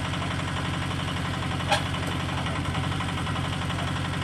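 Excavator engine idling steadily, with one short sharp click about 1.7 seconds in.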